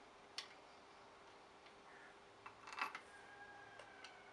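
Small steel parts clicking and clinking as a bridge plate and bolt are fitted by hand onto a steel machining fixture: a sharp click about half a second in, a short cluster of clinks near three seconds with a faint ringing after it, then two light ticks.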